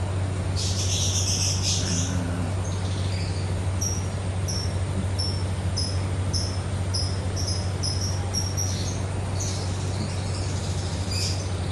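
A cricket chirping: short, high chirps about twice a second, over a steady low hum, with a brief rustling noise about a second in.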